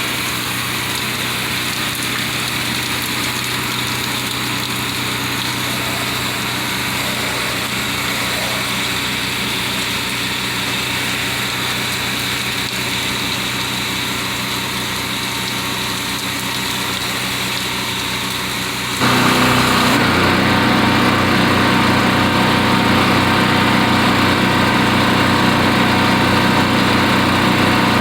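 Gas-engine pressure washer running steadily, with a steady hiss over the engine hum. About two-thirds of the way through, the sound jumps suddenly louder and fuller and stays that way.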